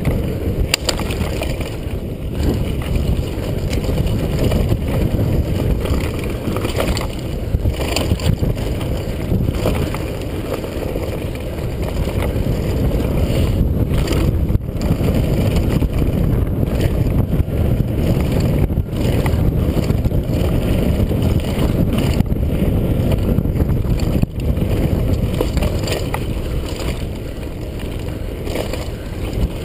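Wind buffeting a helmet-mounted GoPro HD during a fast mountain-bike descent on a dirt trail: a steady low rumble, with scattered knocks and rattles from the Kona Stinky Dee-lux bike and its tyres over bumps.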